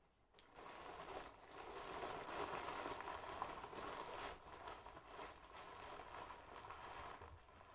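Subway sandwich wrapper paper rustling and crinkling as it is handled and folded up by hand. The rustle starts about half a second in and goes on as a continuous run of small crackles.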